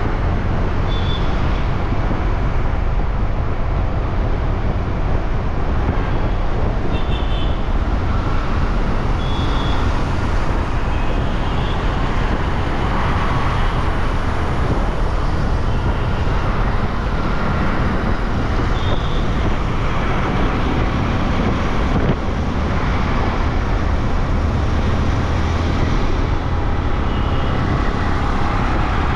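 Riding a scooter in busy city traffic: the steady hum of its small engine and the surrounding traffic under heavy wind rumble on the microphone. A few short, high beeps sound briefly from time to time.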